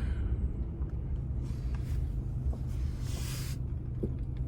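Steady low rumble of a vehicle heard from inside its cabin, with a brief hiss a little past three seconds in.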